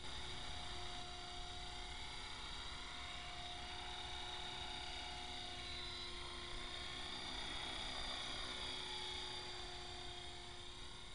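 Electric EXI 450 Pro RC helicopter in flight: a steady whine from its brushless motor and gearing, with the whir of the rotor blades. It is a little fainter near the end.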